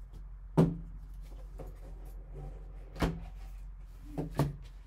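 Hit Parade hockey card box, a cardboard box with a lift-off lid, handled and opened by gloved hands. A sharp knock about half a second in, another around three seconds, and two quick knocks near the end as the lid comes off.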